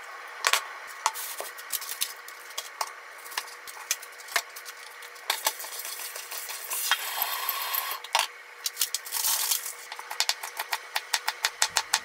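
Kitchen handling sounds: scattered knocks and clinks of a bowl and utensils and a few brief rustles, then in the last two seconds a kitchen knife chopping daikon radish peel on a mango-wood cutting board, about four or five even strokes a second.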